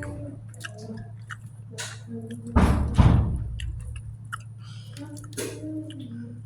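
Close-miked eating sounds: chewing of rice and fried chicken with many small wet clicks, and one louder, longer crunch about two and a half seconds in, over a low steady hum.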